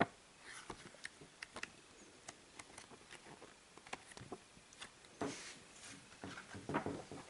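Pages of a printed paper quick start guide being leafed through by hand: a run of soft paper ticks and rustles. There is louder rustling and handling of paper in the last two seconds.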